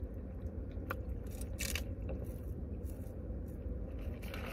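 Someone sipping soda through a straw from a large foam cup, with a few brief slurping sips over a low steady hum inside a car.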